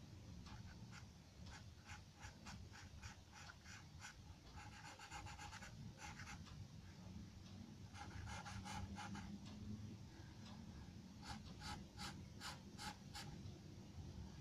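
Charcoal pencil sketching on drawing paper: faint, quick scratchy strokes in bursts, with a few longer drawn strokes in between.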